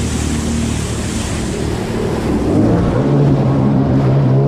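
Sea-Doo Spark Trixx personal watercraft engine running under throttle, with a rush of wind and water spray. About two and a half seconds in, the engine note rises and holds higher and louder as the rider whips the handlebars into a sharp turn for a 180 spin.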